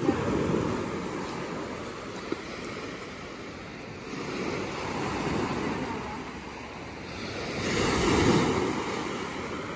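Sea waves breaking and washing over a pebble beach, in three slow swells of surf with the loudest near the end, with some wind on the microphone.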